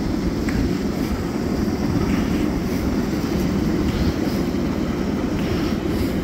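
Steady rumble of a 7.5-inch gauge miniature train rolling along its track, heard from one of the riding cars, with a few faint clicks.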